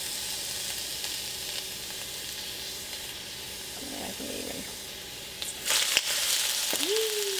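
Juicy beef sizzling as it fries in hot olive oil in a wok. The sizzle grows louder about five and a half seconds in.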